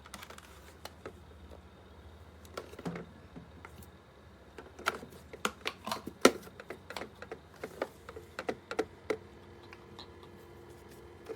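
Irregular light clicks and taps, sparse at first and coming thick and fast in the second half. A faint steady hum comes in near the end.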